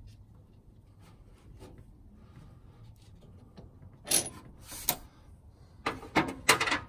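Metal clinks and rattles of a hand tool and bolts being worked by hand while the steering column bolts are put in. They come in two short bursts about four seconds in, then a quick cluster near the end.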